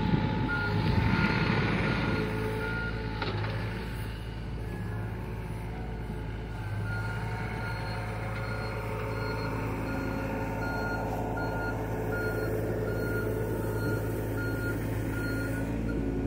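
John Deere mini excavator's diesel engine running steadily while its travel alarm beeps, about one and a half beeps a second, as the machine tracks along. The beeping pauses for a few seconds early on, then starts again.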